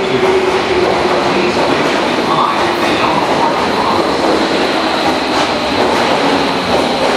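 Tobu 70000 series subway train pulling into an underground platform and braking: a steady loud rumble of wheels on rail, with a whine that sinks slowly in pitch as the train slows.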